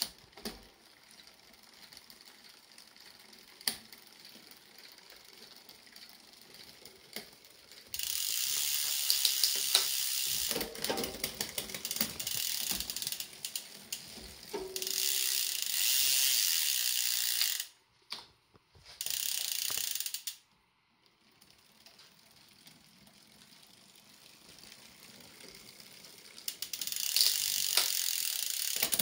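Nearly dry mountain bike chain crunching and rasping over the sprockets as the drivetrain is turned, in spells of several seconds with quieter clicking and ticking between them. The noise is the sign of a chain whose lube has almost completely worn off.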